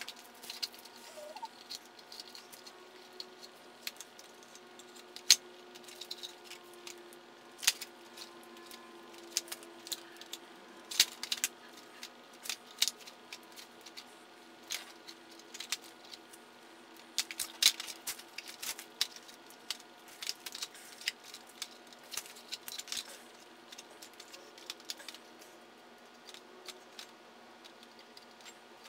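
Masking tape being peeled off a spray-painted plastic airsoft gun, with newspaper crinkling under the hands: irregular crackles and sharp clicks, some in quick clusters.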